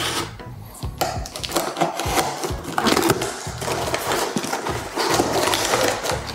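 Cardboard and plastic packing tape being cut and torn off a wrapped package, crinkling and crackling, over background music.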